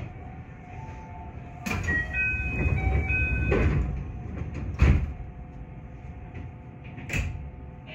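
221-series train standing at a station: a short chime of a few high electronic tones sounds about two seconds in, then the sliding doors shut with a loud thump about five seconds in, followed by a lighter knock near seven seconds.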